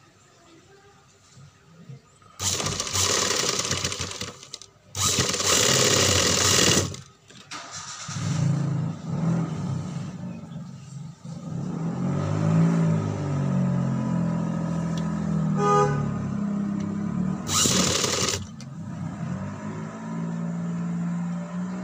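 Industrial sewing machine stitching fabric in short runs, two of about two seconds each after a quiet start and another brief run near the end. From about a third of the way in, a low engine-like drone with a wavering pitch runs underneath.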